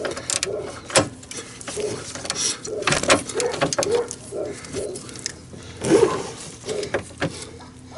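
A hand wrench working the nut on a golf cart's leaf spring bolt, making a series of irregular metallic clicks as the nut is loosened.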